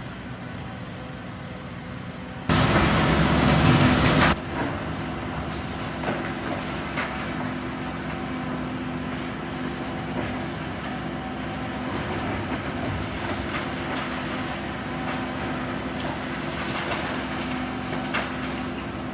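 High-reach demolition excavator working steadily, its engine and hydraulics giving a level hum, with scattered sharp cracks and knocks as its jaws break concrete. Early on, a much louder rush of noise lasts about two seconds and starts and stops abruptly.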